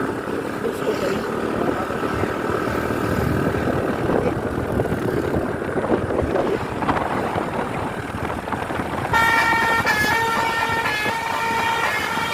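Road and engine noise of buses, then about nine seconds in a bus telolet horn starts up loud, a multi-tone musical horn playing a tune of stepping notes.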